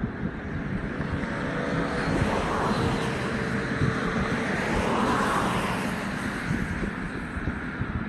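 A vehicle passing by: its noise swells, peaks about halfway through and fades away, over a rough wind rumble on the microphone.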